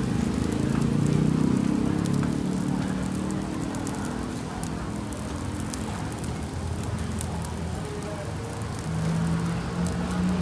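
Street market background of low murmur and traffic hum, with a few faint crackles from a charcoal grill of salt-crusted fish.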